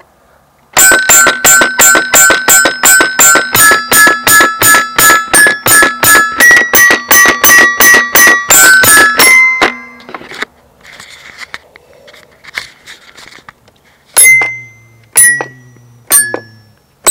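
Electronic music: a fast, even run of bright pinging notes, about four a second, stepping upward in pitch, stopping about ten seconds in, then a few sparse pings near the end.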